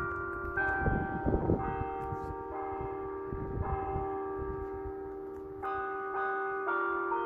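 Electronic church bells played through roof-mounted horn loudspeakers, sounding a tune of bell notes, each note ringing on as the next one strikes.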